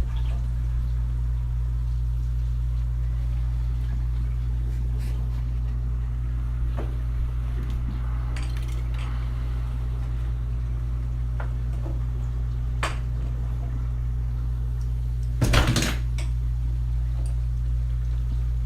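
Hard objects clinking and knocking now and then over a steady low hum, with one louder clatter about fifteen seconds in.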